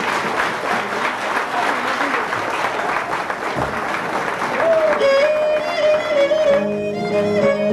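Crowd applause and chatter. About halfway through, a Cretan lyra starts a melody, and shortly after a laouto joins, strumming a steady accompanying chord.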